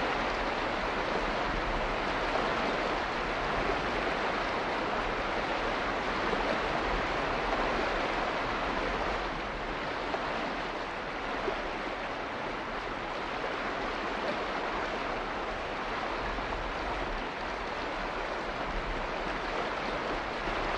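Steady, unbroken rushing of water, with a slight dip in loudness about nine seconds in.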